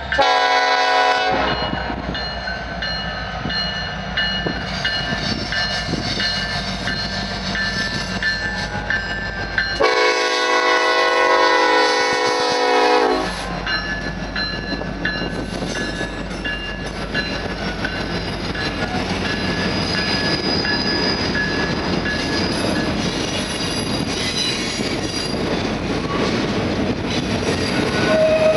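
Union Pacific freight train passing close by: the lead diesel locomotive's air horn sounds a short blast at the start and a longer blast about ten seconds in, as a crossing warning. Then the locomotives' diesel engines rumble past, followed by the steady clatter of autorack cars' steel wheels on the rails with some thin wheel squeal.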